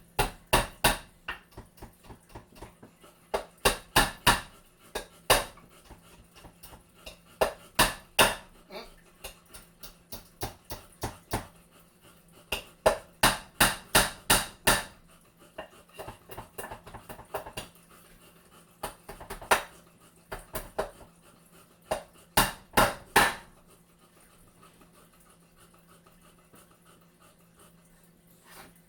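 Hammer driving nails into a wooden frame: groups of sharp strikes in quick succession, about three a second, with pauses between the groups. The hammering stops a few seconds before the end.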